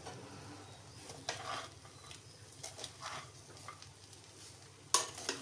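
Spatula stirring rice in a pan over faint sizzling, in a few soft scraping strokes, with a sharper knock against the pan about five seconds in.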